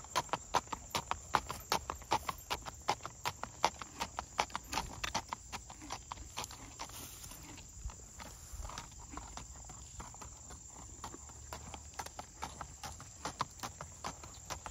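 A horse's hooves clip-clopping on a paved path under a rider at a brisk walk, in quick, even hoofbeats about four a second. The hoofbeats fade in the middle as the horse moves off, and grow louder again near the end as it comes back.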